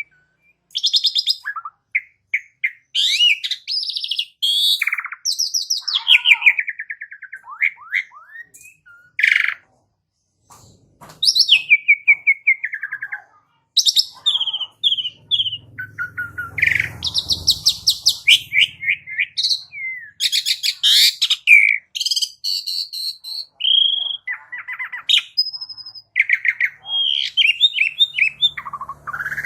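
Asian pied starling (jalak suren) singing a long, varied song of clear whistles, falling notes and rapid buzzy, rattling trills, with a pause of about two seconds around nine seconds in.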